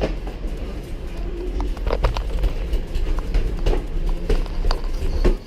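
A BMX bike being ridden: a steady low wind rumble on the microphone, with scattered clicks and knocks from the bike rattling over the ground.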